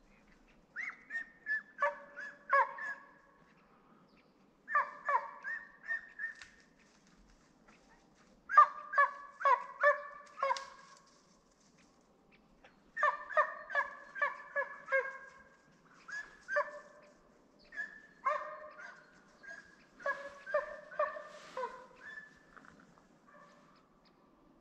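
A hunting dog baying on a scent trail, in bouts of several quick barks every few seconds: the dog is driving game, which the hunter takes to be roe deer.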